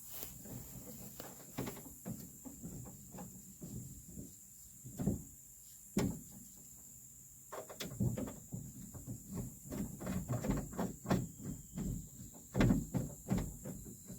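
Hands working on a truck door's lock hardware: irregular clicks, taps and knocks as lock parts and a bolt are fitted. They are sparse at first and come thick and fast in the second half.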